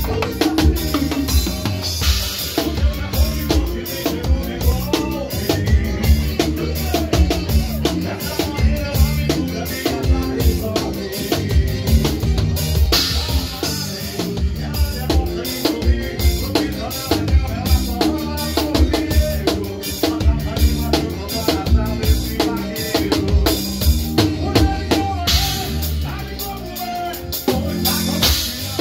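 Live forró band music: a drum kit keeps a steady, driving beat of kick and snare under an accordion melody.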